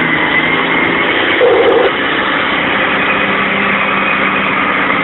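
Mack dump truck's diesel engine running steadily, heard from inside the cab, with a brief higher-pitched sound about a second and a half in.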